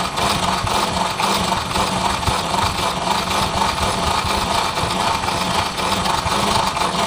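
Hand-cranked coil-winding machine turning steadily, its gears and turn counter making a rapid, even mechanical whirr as copper wire is wound onto a wooden former for a drill motor's replacement field coil.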